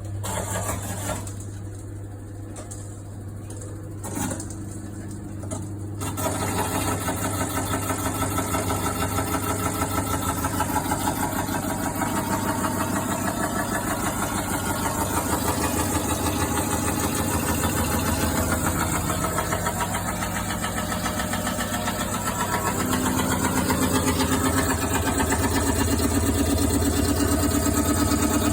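Washing machine running with a steady hum, a couple of knocks, then from about six seconds in a fast, continuous rattle: an abnormal noise caused by something left in a pocket.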